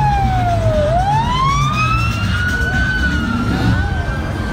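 Police siren on a slow wail: its pitch falls to a low point about a second in, then rises and holds high, over a low rumble.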